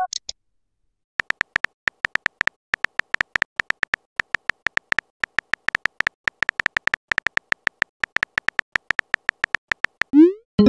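Phone keyboard typing sound effect: a rapid, uneven run of short clicks, several a second, as a text message is typed out, starting about a second in. About ten seconds in, a short rising whoosh: the message-sent sound.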